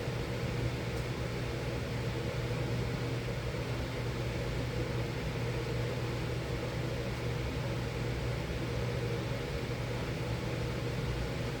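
Miller E3 furnace running steadily: an even airy rush from the blower over a constant low hum.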